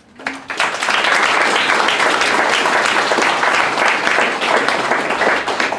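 Audience applauding: many people clapping, building within the first second and then holding steady.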